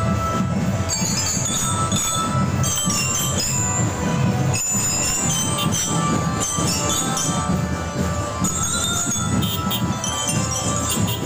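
A school marching drum band playing a tune: many marching glockenspiels (bell lyras) ring out the melody in bright, quick notes over a steady low drum accompaniment.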